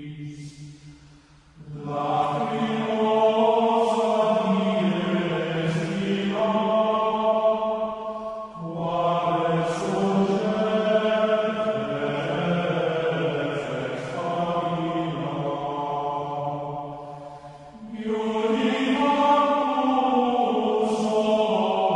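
Background music of sustained chant-like voices holding long notes, breaking off briefly between phrases three times.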